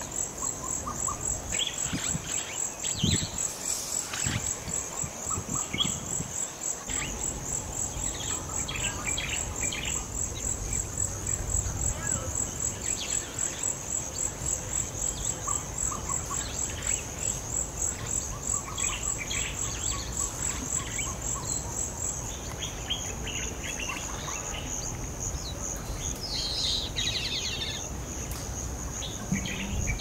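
West African tropical forest ambience: a high-pitched insect chorus pulsing a few times a second, dropping slightly in pitch about two-thirds of the way through, with scattered bird calls and chirps over it.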